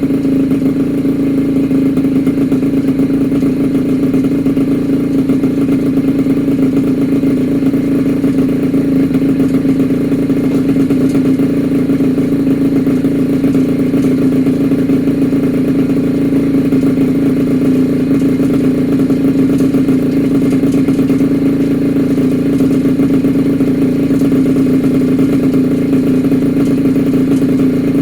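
Freshly rebuilt small two-stroke engine with Polini Corsa parts running steadily at a constant speed, on one of its first runs after the rebuild.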